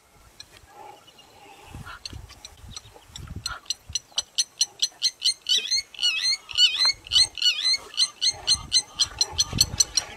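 Wild animal calls: a run of short high chirps that grows quicker, to about four or five a second, with warbling calls in the middle, and a few low thuds.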